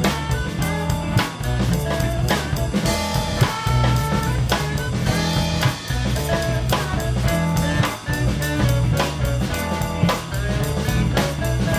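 Instrumental pop-rock music with electric guitar and keyboard played over a steady drum-kit beat.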